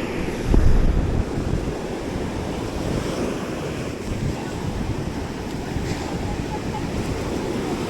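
Surf washing on a beach with wind buffeting the microphone, a strong low gust about half a second in.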